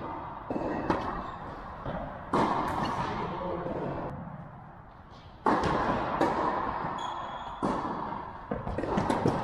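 Tennis ball struck by rackets during a rally: several sharp pops a couple of seconds apart, each trailing a long echo in the large indoor hall.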